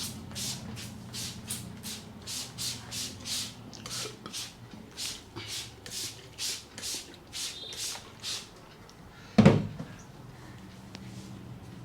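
Hands rubbing briskly over the scalp and hair during a head massage, in quick hissing strokes about three a second, which stop after about eight seconds. About a second later there is a single heavy thump.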